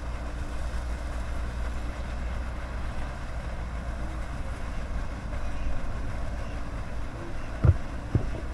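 Steady low rumble of wind on the microphone, with two dull knocks about half a second apart near the end.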